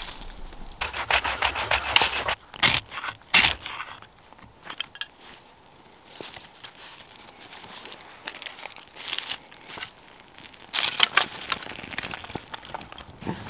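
Dry birch bark and thin twigs being handled, crinkled and snapped while a small tinder fire is lit, in two bursts near the start and about eleven seconds in, with faint crackling between.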